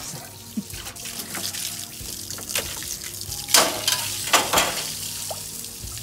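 Water from a garden hose splashing and running inside an empty refrigerator as it is washed out, with two louder splashes about three and a half and four and a half seconds in.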